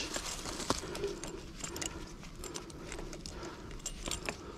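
Faint clicks and light scraping of pliers working a hose fitting.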